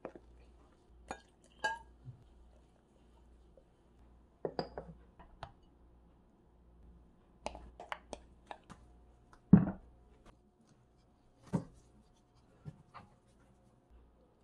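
A silicone spatula and glass mixing bowls clinking and knocking while pancake batter is stirred and poured: scattered short taps, the loudest knock about two-thirds of the way through.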